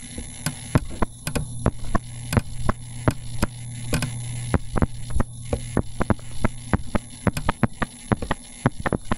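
Sharp, irregular clicks and taps of a stylus on a drawing tablet while handwriting, several a second, over a steady low electrical hum.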